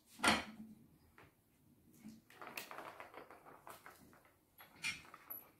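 Kittens batting a light-up ball around a plastic circular track toy: a sharp knock about a quarter of a second in, then scattered light rattles and knocks of the ball against the plastic.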